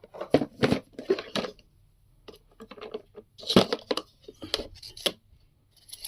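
Irregular crinkling, rustling and small knocks from a new coffee maker and its packaging being handled and unpacked.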